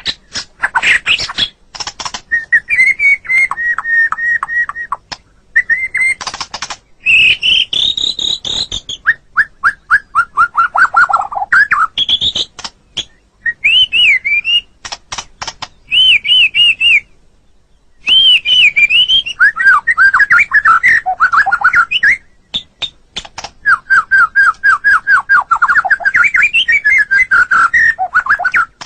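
White-rumped shama (murai batu) singing a loud, varied song of whistled phrases, sweeping notes and rapid repeated notes, broken by short pauses and a silent gap about two-thirds of the way through.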